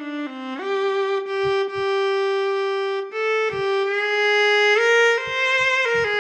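Physically modelled viola from the SWAM Solo Strings v3 software instrument playing a slow legato phrase of sustained bowed notes: one long held note, then a few short steps up and back down near the end.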